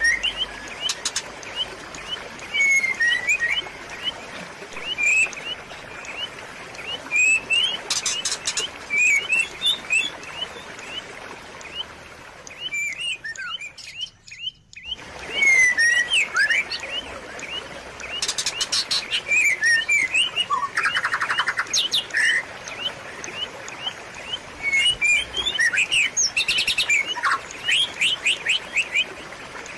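Small birds chirping over and over, short sweeping notes with now and then a quick rapid trill, over a faint steady background rush of trickling water. The sound briefly drops away about halfway through.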